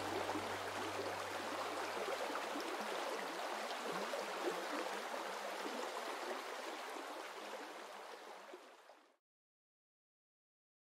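Steady running, bubbling water, with the last low notes of background music dying away in the first few seconds. The water fades and stops entirely about nine seconds in, leaving silence.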